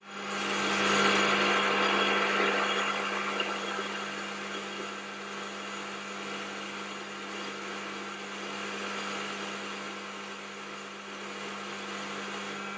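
Warco GH1330 gear-head lathe turning mild steel under a 2 mm deep cut with a carbide insert: a steady hum from the motor and gearing under the hiss of the cut, a little louder in the first two seconds. The motor is not bogging down under the load.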